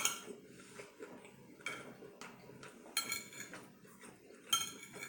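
Metal utensils clinking against a dish, four sharp clinks each with a brief ring: one right at the start, a weaker one under two seconds in, then about three seconds in and near the end.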